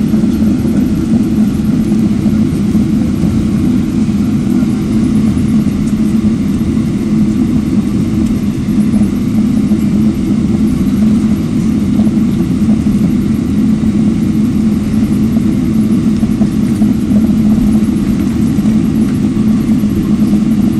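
Jet airliner cabin noise while taxiing: the engines and airflow make a steady, deep drone heard through the cabin, unchanging in level.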